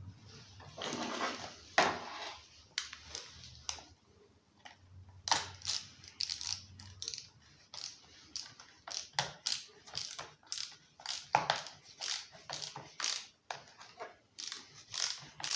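Irregular sharp clicks and scrapes of hand work on a Husqvarna 137 chainsaw as a cover screw is driven in, with a brief scraping rasp about a second in and then a couple of clicks a second.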